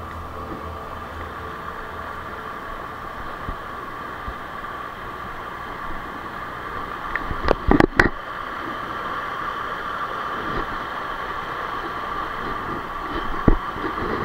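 River water rushing over rocks, a steady hiss that grows slightly louder about halfway through. A few sharp thumps come about halfway through and once more near the end.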